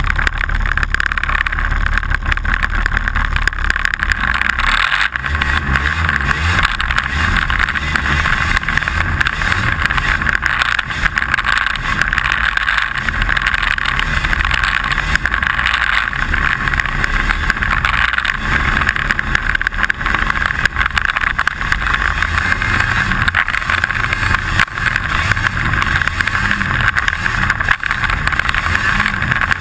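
Snowmobile engine running and pulling through powder snow, heard close up from a camera on the hood, its low end rising and falling with the throttle. A steady rattle of unknown cause runs over it.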